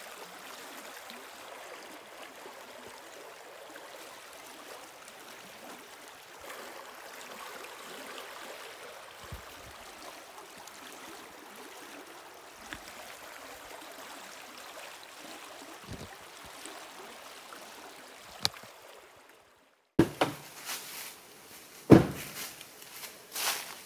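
Small creek flowing steadily over a shallow riffle, an even rushing hiss. Near the end the water sound cuts off and several sharp knocks and thumps follow, one much louder than the rest.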